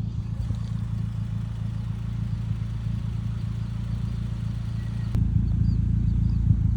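Car engine running steadily with a low hum, most likely the built 2008 Mitsubishi Lancer Evolution X's turbocharged 2.0-litre four-cylinder. About five seconds in there is a sharp click, and the engine sound grows louder after it.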